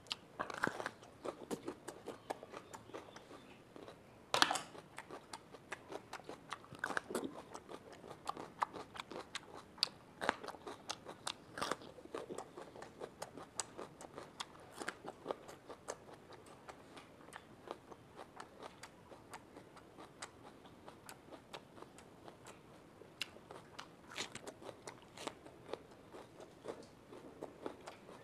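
Raw capsicum (bell pepper) being bitten and chewed: a run of short, crisp crunches with wet chewing between them. The loudest bite comes about four and a half seconds in.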